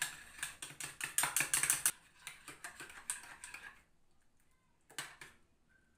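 Metal spoon stirring milk in a ceramic mug, clicking rapidly against the sides to dissolve sugar. The clicking thins out and stops about four seconds in, with one more tap a second later.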